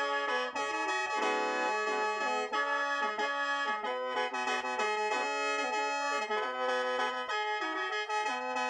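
Lao khaen, a bamboo free-reed mouth organ, being played: several reeds sound at once, with a melody stepping up and down over held notes in an unbroken stream.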